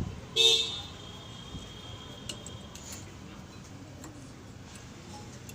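Metal brake pads being fitted back into a disc-brake caliper: a sharp metallic clink about half a second in that rings on for a second or two, followed by a few light metal ticks.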